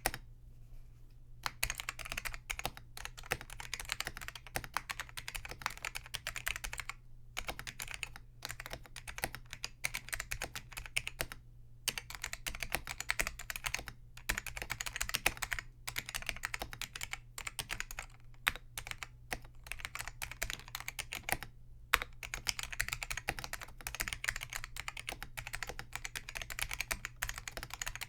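Continuous typing on a Focus FK-2001 keyboard with Hua-Jie T1 Alps-clone switches whose click leaves are removed: a fast, uneven stream of key clacks broken by a few brief pauses. The switches are not truly linear, because the slider pushing the contact leaf still gives a strong tactile bump.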